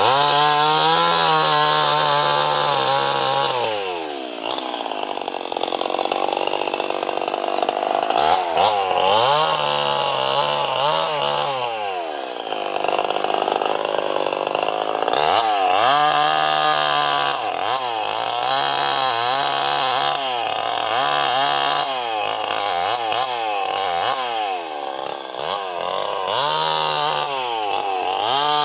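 Two-stroke chainsaw cutting mahogany, revving up to full speed and holding for a few seconds, then dropping back, over and over.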